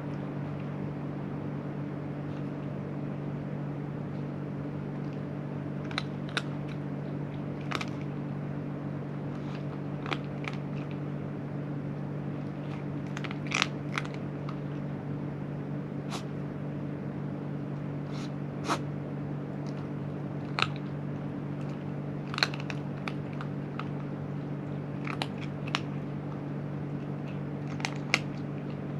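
A cat crunching dry food, with sharp single crunches every second or two and a few quick clusters, over a steady low hum.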